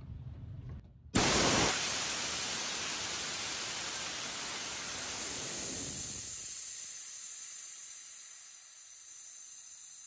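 Pressurized nitrogen rushing out of an air-conditioner line set through a ball valve opened full on the service port, purging the line. A loud hiss starts suddenly about a second in and slowly fades as the pressure drops.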